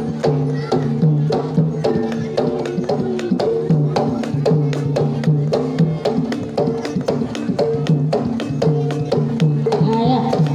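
Javanese gamelan playing a Banyumasan tayub piece: bronze bonang gong-pots struck with a mallet in a quick, even run over sustained metallic tones, with drum strokes, and a female sinden singing through a microphone.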